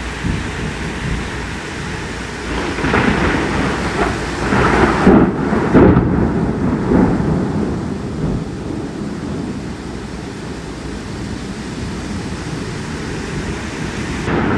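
Steady heavy rain with a thunderclap that builds about two and a half seconds in, cracks and rumbles loudest around five to six seconds, then rolls away; another peal starts near the end.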